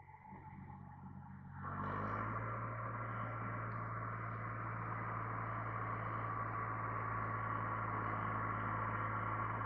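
International Harvester 385 diesel tractor engine running while bush hogging a pasture. It grows louder about two seconds in, then holds a steady low hum.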